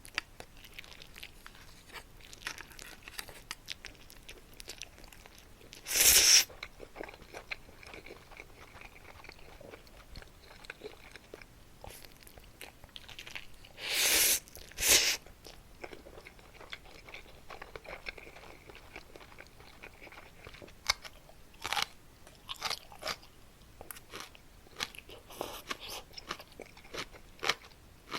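Close-miked crunching and chewing of Muktaekkang, a crisp puffed Korean snack, with many small crackling bites and a few louder crunches about six seconds in and twice around fourteen to fifteen seconds in.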